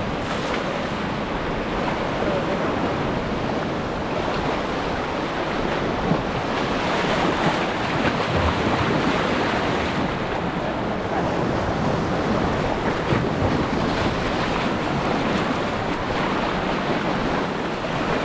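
Sea surf washing and breaking in the shallows, a steady rush of water, with wind buffeting the microphone.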